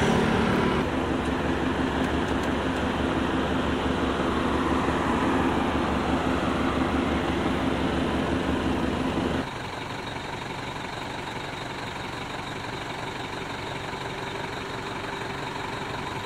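A motor vehicle engine idling close by, with road traffic noise: a steady hum that drops suddenly to a quieter level about two-thirds of the way through.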